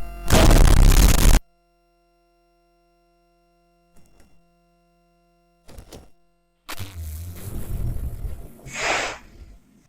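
Sound effects for a homemade battle animation. A loud noisy burst lasts about a second and a half, two short faint knocks follow, and a longer rough noise starts near the middle and ends with a sharp hiss, all over a faint steady hum.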